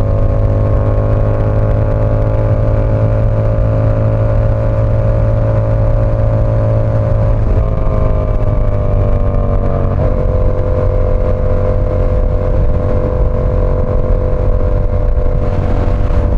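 Yamaha R7's parallel-twin engine running steadily while riding, its pitch easing down a little about eight seconds in and dropping again about ten seconds in.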